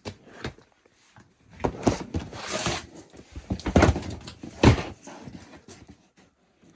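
Plastic storage bins being handled: scraping and rustling with several sharp knocks, the loudest about four and nearly five seconds in, as a bin is passed over and its lid is worked.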